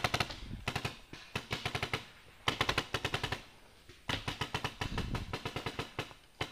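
Paintball markers firing rapid strings of shots: three bursts of quick, evenly spaced pops, with short pauses between them.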